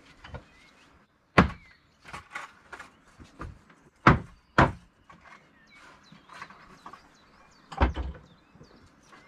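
Flat wooden boards knocking and clattering as they are lifted and stacked by hand: four loud sharp knocks with lighter taps and scrapes between.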